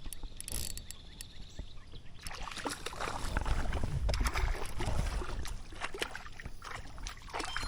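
Water splashing and sloshing with rumbling handling noise and scattered clicks as a hooked creek fish is brought in, louder for a couple of seconds near the middle.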